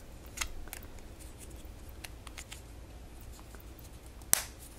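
Small clicks and taps of fingers handling a KardiaMobile pocket EKG device while fitting its battery cover back on, with one sharp click about four seconds in.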